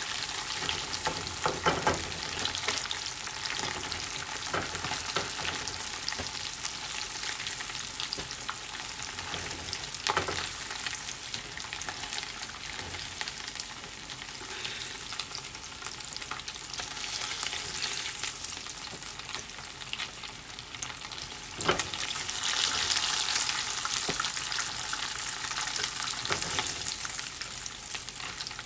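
Battered chicken pieces sizzling and crackling in hot oil during a second fry, the stage that crisps them. A few sharp knocks stand out, about 1.5, 10 and 22 seconds in.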